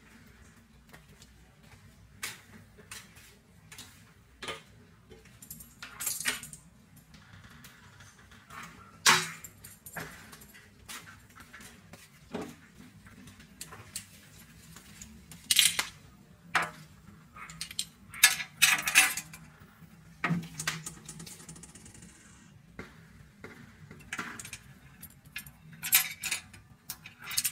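Scattered light clicks, taps and short scrapes of kittens' paws and claws on a glass shelf as they play, louder every few seconds.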